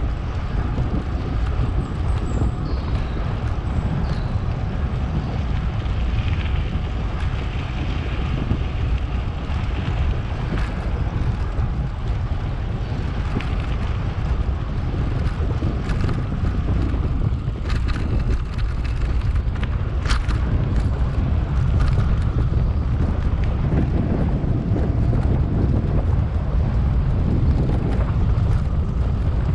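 Wind buffeting the microphone in a steady low rumble while riding an electric mountain bike, with a few sharp knocks and rattles from the bike going over the ground.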